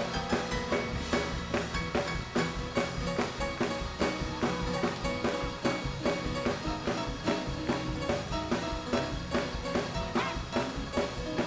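Live church band playing fast praise-break music: a drum kit keeps a quick, even beat of about four strokes a second under sustained held chords.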